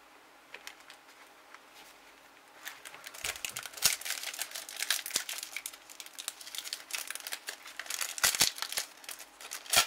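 A foil Topps Match Attax booster pack being crinkled and torn open by hand. A few faint clicks come first, then dense crinkling crackle from about three seconds in, with several sharp, louder crackles.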